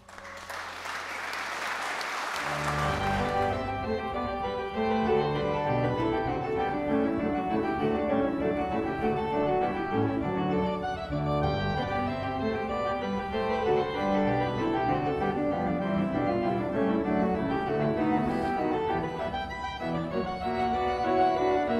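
Brief applause, then organ music starts about two to three seconds in and plays on with full chords, as processional music for the recession.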